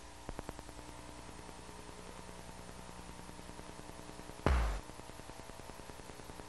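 Faint steady hum, then about four and a half seconds in a single short cartoon sound effect: a falling swoosh that ends in a low thud as a towel drops to the floor.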